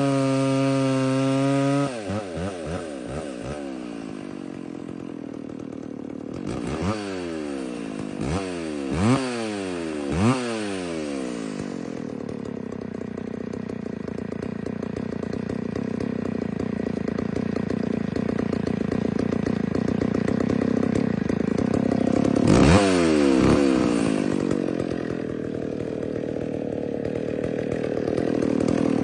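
McCulloch Pro Mac 605 two-stroke chainsaw running, held high at first and then dropping back, with three quick throttle blips, a slow climb in speed, and two more blips near the end before it settles lower.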